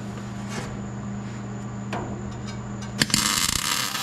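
MIG welder tack-welding sheet-steel firewall plate: after a steady low hum, the arc strikes with a sharp click about three seconds in and crackles and hisses.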